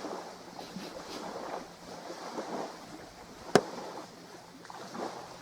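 A single sharp click about three and a half seconds in, over a steady low outdoor background hiss.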